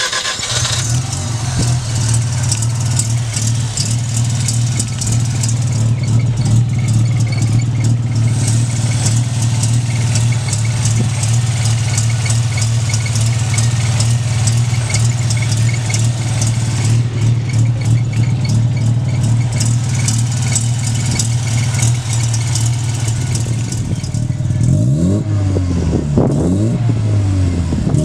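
Mazda 13B REW rotary engine, street-ported and turbocharged, idling steadily just after start-up. In the last few seconds it is revved with several quick throttle blips, the pitch rising and falling each time.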